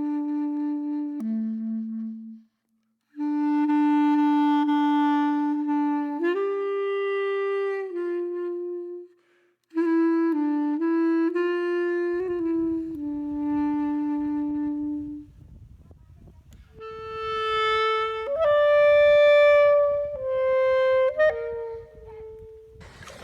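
Background music: a slow melody on a solo woodwind instrument, one line of held notes with two short breaks.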